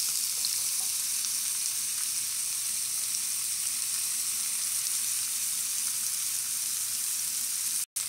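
Sliced onions and green bell pepper strips sizzling steadily in a hot frying pan, with a brief break in the sound near the end.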